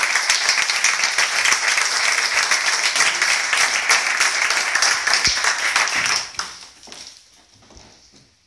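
A small audience applauding, dying away about six seconds in, with a few last scattered claps.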